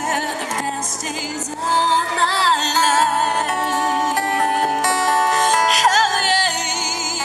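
Live band playing: a woman singing into an amplified microphone, her held notes wavering with vibrato, backed by strummed acoustic guitar and a second guitar.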